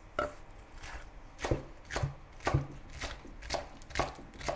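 Chef's knife chopping coriander stems on a wooden cutting board: one knock just after the start, then a steady run of knocks about two a second.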